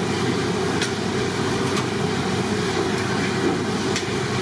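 Steady roar of a busy street-side tiffin kitchen, with a few sharp clicks of a metal spoon working idli batter onto a cloth-lined steaming plate.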